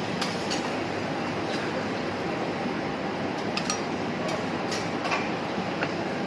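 Metal spatulas clinking against a teppanyaki griddle: about nine sharp, irregular clinks over a steady noise.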